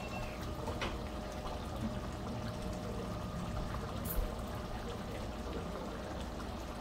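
A frying pan of shrimp, flat-bean and potato curry simmering on a gas burner, its gravy bubbling steadily, with a faint tick about four seconds in.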